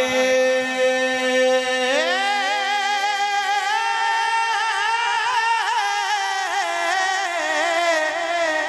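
A man singing a naat into a microphone. He holds one long note for about two seconds, then moves into a long, wavering melismatic run that drifts slowly lower.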